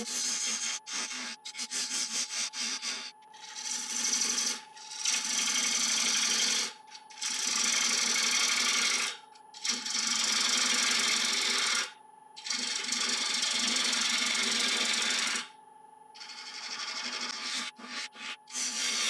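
A 3/8-inch bowl gouge cutting into hard laburnum spinning on a wood lathe, hollowing out the inside of a bowl. It begins with short, broken touches, then makes four long cutting passes of two to three seconds each. The lathe's steady hum runs underneath.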